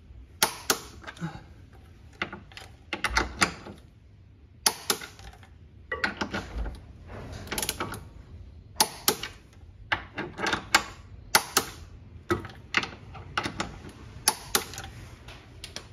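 Socket wrench ratcheting on the rear trailing arm carrier-to-chassis bolts as they are brought to final torque: irregular sharp clicks, some in quick runs.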